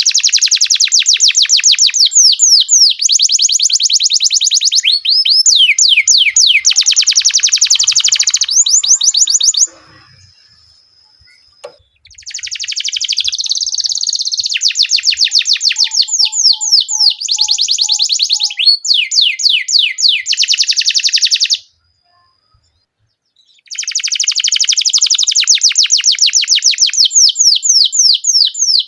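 Domestic canary singing long, fast rolling trills, each a rapid run of repeated notes, with two short breaks in the song.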